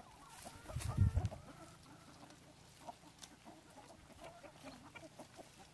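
A flock of hens clucking quietly in many short scattered calls while pecking at fresh green leaves, with a brief low thump about a second in.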